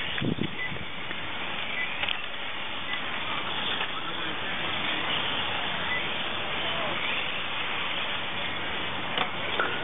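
Electric motors of 1:18 scale RC touring cars whining as they lap the track, rising and falling in pitch, over a steady outdoor hiss. A brief voice near the start.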